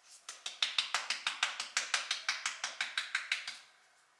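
Twist-top spice mill grinding cumin: a quick, even run of dry clicks, about seven a second, that stops about three and a half seconds in.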